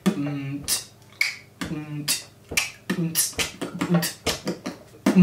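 Beatboxing practice with basic mouth-percussion sounds (kick, 'k' snare and 't' hi-hat): a string of sharp unvoiced hits, about two to three a second and getting quicker, with a few short voiced sounds in between.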